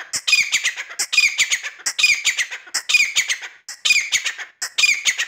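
A bird calling in loud, harsh squawks. Each call is a quick run of several notes, and the calls repeat about once a second.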